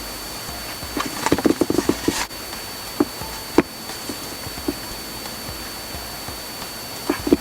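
Clicks and taps of shift-knob parts being handled and worked into place: a quick run of clicks about a second in, then a few single sharp clicks.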